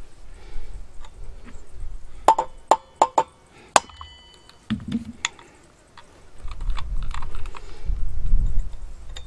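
Five quick, sharp metallic hammer strikes with a ringing tail, all within about a second and a half, as a hammer drives a steel punch on a dismantled chainsaw. A low rumbling handling noise fills the last few seconds.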